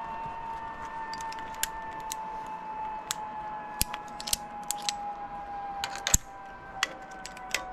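Scattered sharp clicks and clinks of climbing-harness hardware, carabiners and lanyard being handled, the sharpest about six seconds in. Under them runs a steady whine that slowly falls in pitch.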